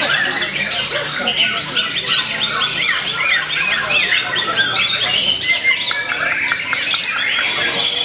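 White-rumped shama (murai batu) singing a fast, varied song of quick repeated notes and slurred whistles.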